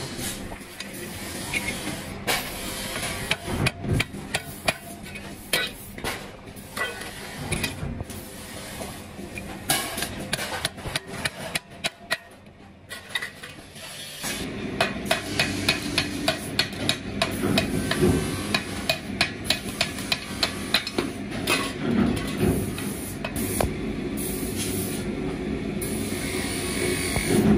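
Hammer strikes as wooden handles are driven onto the tangs of steel trowel blades: scattered blows at first, then a quick run of taps, about three or four a second, in the second half.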